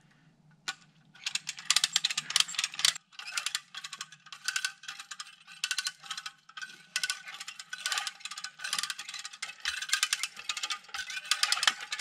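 Hand-operated ratchet winch being cranked: rapid ratchet-and-pawl clicking in short bursts, about two strokes of the lever a second, starting about a second in. The winch is tensioning a rope under load to pull down a leaning tree.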